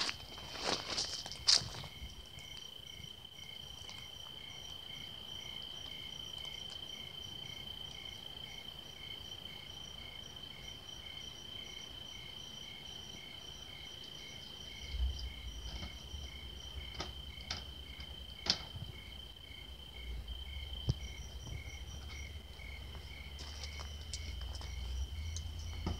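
Night insects calling: one steady, high, unbroken trill, with a second insect pulsing about twice a second beside it. A few sharp clicks come near the start and again past the middle, and a low rumble sets in about halfway through.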